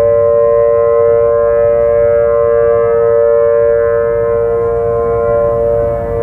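A loud, steady tone held at one pitch with many overtones, over a low rumble.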